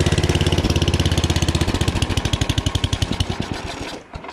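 Yard-Man snowblower's 9 hp small engine running fast and even, then slowing from about halfway, its firing beats spreading apart and getting quieter near the end. It has just been started cold after two years of storage and still needs to warm up.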